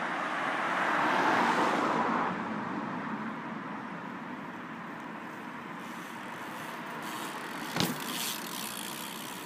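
Steady outdoor road-traffic noise, swelling over the first two seconds and then easing, with one sharp knock about eight seconds in.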